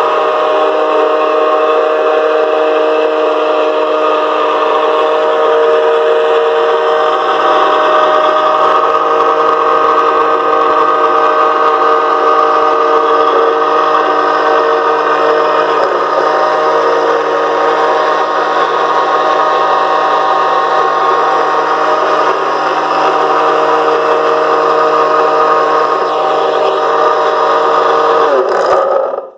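Homemade rotating-rod generator prototype running: a loud, steady whine with an even hum that holds one pitch throughout, then cuts off suddenly near the end.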